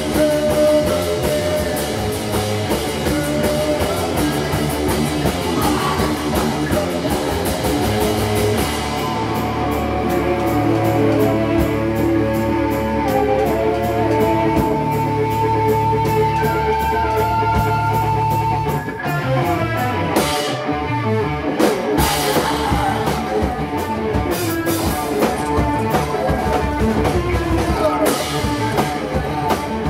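Live rock band playing loud: electric guitars over a drum kit. About a third of the way in the cymbals drop back and the guitars hold long notes. After a brief break of separate hits around two-thirds through, the full band comes back in.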